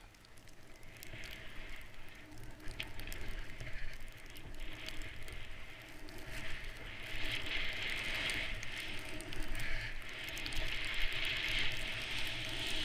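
Skis hissing through deep powder snow, the hiss swelling and fading with each turn and growing louder as the skier gains speed, over wind rumbling on a helmet-mounted camera.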